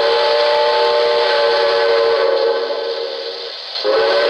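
The RailSounds steam whistle of a Lionel O-gauge NYC Commodore Vanderbilt model, a recorded chime whistle played through the locomotive's speaker: one long, steady blast that stops about three and a half seconds in, then a second blast starting near the end.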